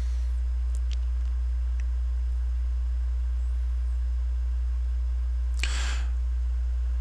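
Steady low electrical hum, with two faint clicks and, about six seconds in, a brief scrape as a cleaning rod with a cloth patch is pushed into a chamber of a stainless revolver's cylinder.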